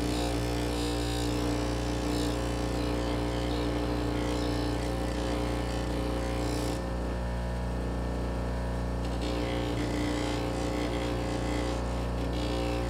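Delta 6-inch bench grinder running with a steady hum while a steel lathe chuck key is buffed on its Scotch-Brite wheel, the steel rubbing on the wheel adding a hiss that eases off for a couple of seconds about halfway through.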